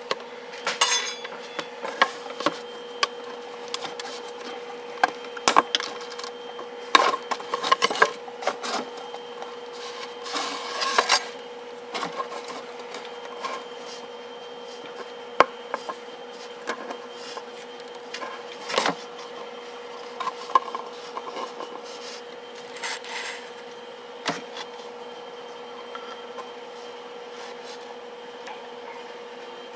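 Small 3D-printed plastic parts being handled and moved about on a hard surface: scattered knocks, taps and rubbing, busiest in the first dozen seconds and only occasional after. A steady faint hum runs underneath.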